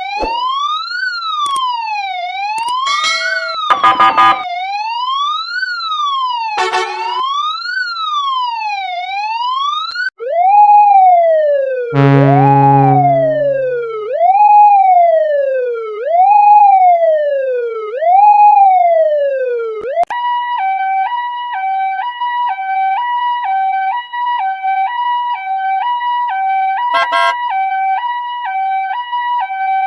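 Emergency vehicle sirens in three patterns. First comes an even wail that rises and falls about every two and a half seconds. About ten seconds in it changes to a repeated falling sweep about every two seconds, with a low horn blast near twelve seconds, and about twenty seconds in to a two-tone hi-lo alternating about once a second.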